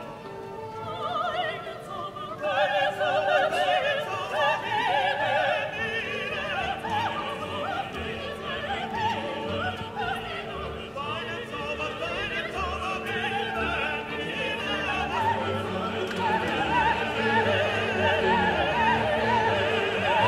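Classical music: operatic singing with wide vibrato over an orchestra, growing slightly louder toward the end.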